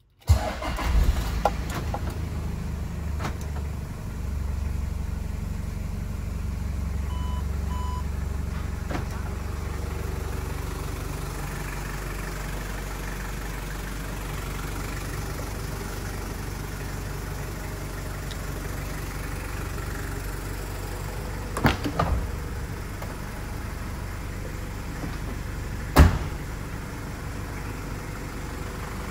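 Toyota Land Cruiser's 3.0 L 1KZ-TE turbo diesel starting and then idling steadily. The low engine note is heavier for the first ten seconds or so, then settles. Two sharp knocks come late on.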